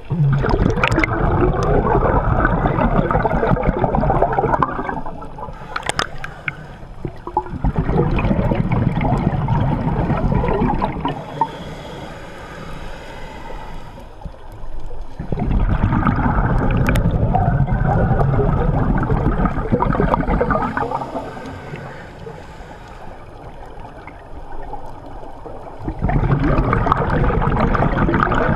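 Scuba regulator exhaust heard underwater: the camera-holding diver's exhaled breath bubbles out in four long surges of a few seconds each, with quieter stretches between as the diver breathes in through the regulator.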